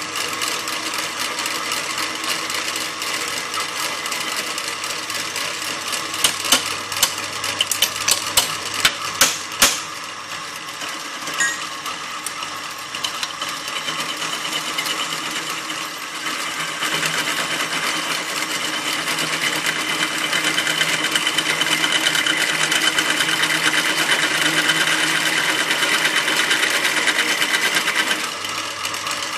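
Bench drill press motor starting and the bit drilling into a metal bar, running steadily. A run of sharp clicks comes about six to ten seconds in, and from about seventeen seconds the cutting grows louder and higher-pitched, easing off near the end.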